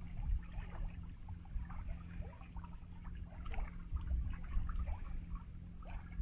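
Water gurgling and splashing along the hull of a Sunbeam 42 sailing yacht sailing slowly under genoa alone, with no engine running; many small irregular trickles over a low rumble.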